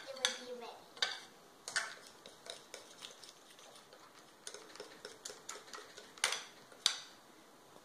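Fork clinking and scraping against a glass mixing bowl while stirring confectioner's sugar into a sticky fondant mixture, in irregular clicks, with two louder clinks near the end.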